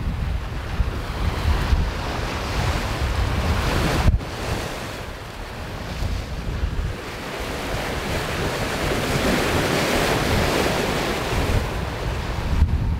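Wind buffeting the microphone over the steady rush of choppy sea and breaking waves around a sailing yacht under way. The sound breaks off sharply for an instant about four seconds in and again near the end.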